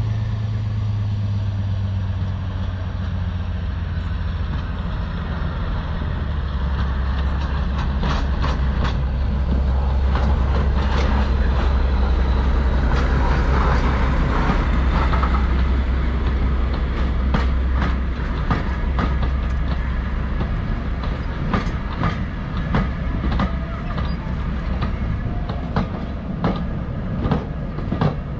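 Heritage diesel locomotive and train passing, its engine running with a steady low drone that drops in pitch about six seconds in. From about eight seconds in, the wheels click over rail joints.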